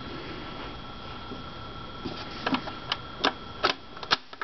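Record player after the song has ended: steady hiss with a faint hum, then from about halfway a run of sharp, uneven clicks, five or six of them.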